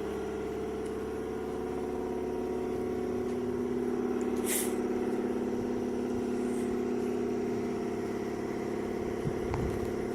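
A motor or engine running steadily with an even hum, with a short hiss about four and a half seconds in.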